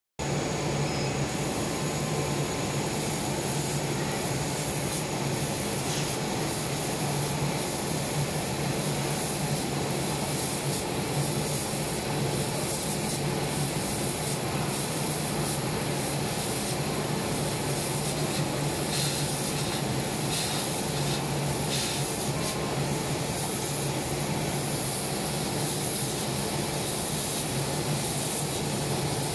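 Dual-head fabric laser cutting machine running: a steady hum with a faint high whine.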